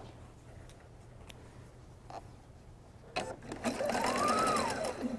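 Electric sewing machine stitching a quilt seam in short runs. It stops right at the start, a few faint clicks follow in the pause, then about three seconds in it runs again for about two seconds, its pitch rising and then falling as the motor speeds up and slows down.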